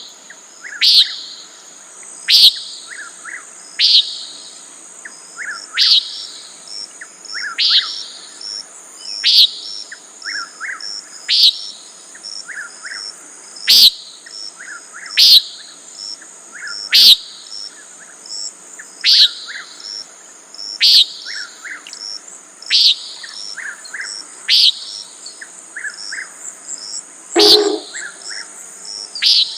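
Common nighthawk giving its short, buzzy peent call over and over, about one call every one and a half to two seconds, with a steady high insect drone behind it.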